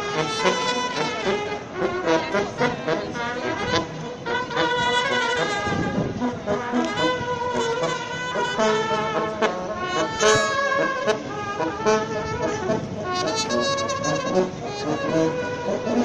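Street jazz band playing, with brass horns carrying the melody.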